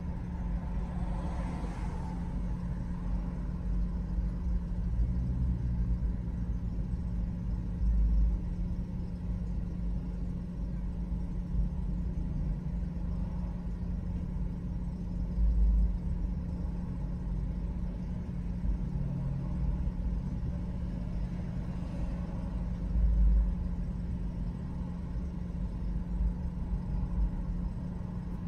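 Car stopped in traffic and idling, heard from inside the cabin: a steady low hum, with brief low rumbles about 8, 15 and 23 seconds in.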